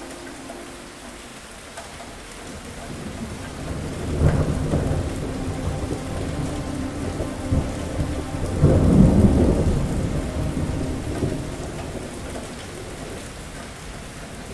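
Steady heavy rain with a long roll of thunder: it breaks in sharply about four seconds in, swells to its loudest a little past halfway, then rumbles away over the next few seconds.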